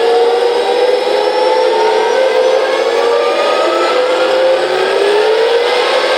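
DasMikro RC tank sound unit playing a simulated M1 Abrams gas-turbine engine through its small speaker: a layered turbine whine whose pitch rises, dips and rises again with the throttle. The sound is thin, with no deep rumble.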